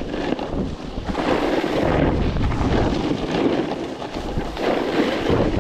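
Strong wind buffeting the microphone in a snowstorm: a heavy, gusting rumble that swells and eases, dipping briefly about four seconds in.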